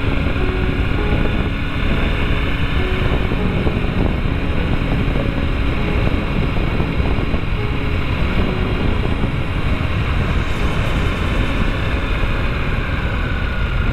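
Kawasaki W800's air-cooled parallel-twin engine running as the motorcycle rides along, under heavy wind buffeting on the microphone.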